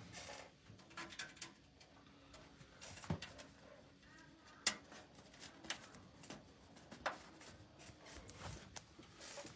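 Faint, scattered small clicks and ticks with some light rustling, the sharpest click a little under 5 s in.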